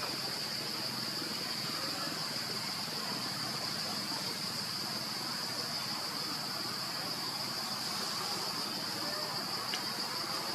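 Insects calling in one steady, unbroken high-pitched drone over a soft background hiss.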